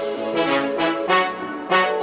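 Background music led by brass, playing a melody in short separate notes.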